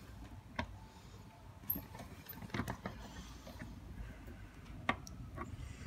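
Faint, scattered clicks and scrapes of a Phillips screwdriver turning a screw into the metal chassis of a small electric ceramic hob.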